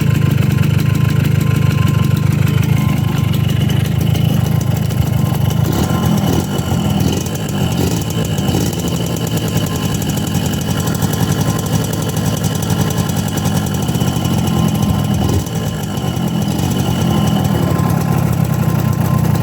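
Suzuki AX100's single-cylinder two-stroke engine running steadily at a fast idle, held just above stalling, its note dipping briefly a couple of times. It has just been repaired with a keyed crankshaft sprocket; the carburettor is still unadjusted.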